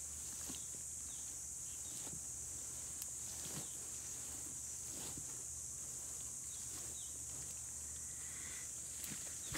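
A steady, high-pitched insect drone, with faint, scattered crackles and snaps as Komodo dragons tug at a wild boar carcass in dry leaf litter.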